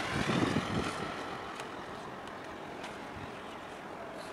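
Wind buffeting the microphone, strongest in the first second, over a steady distant rumble of harbour engines.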